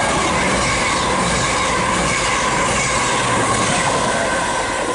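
CrossCountry Voyager diesel multiple unit passing through at speed: a loud, steady rush of wheels on rail and train noise, with a thin steady whine running under it.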